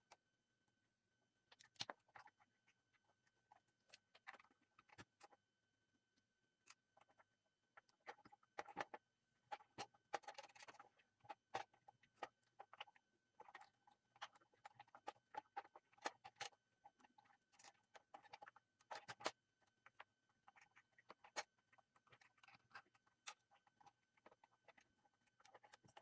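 Faint, irregular small clicks and brief rustles of hands working a flat ribbon cable and wires into a Zebra GK420d label printer's plastic chassis, with a denser flurry of handling about ten seconds in. A faint steady high whine sits underneath.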